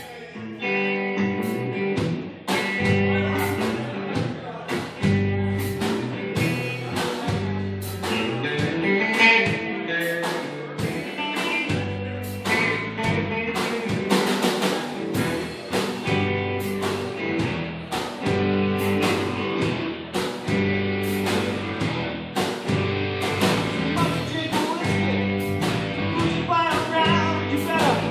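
Live band playing a blues shuffle on electric guitars, bass and drums, with a steady drum beat about twice a second.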